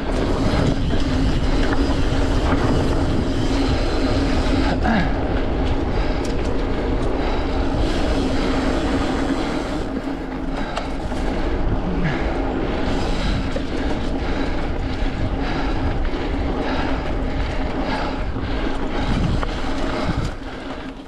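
Mountain bike being ridden fast over a dirt trail: steady wind rush on the microphone with tyre rumble and the bike rattling over rough ground, easing a little near the end.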